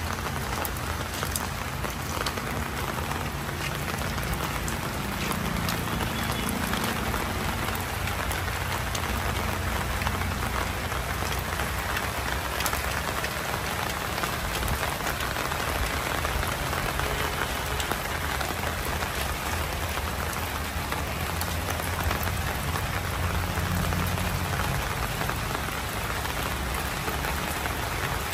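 Heavy rain falling steadily, a dense hiss of drops with many small ticks of individual drops striking surfaces close by.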